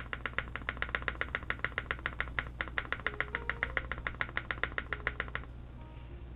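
Spacebar of a custom mechanical keyboard, assembled without its top case, pressed over and over in quick, even clacks, about eight a second, stopping about five seconds in.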